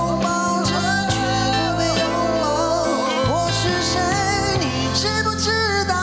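A man singing a Mandarin pop ballad into a microphone over band accompaniment with steady sustained bass notes.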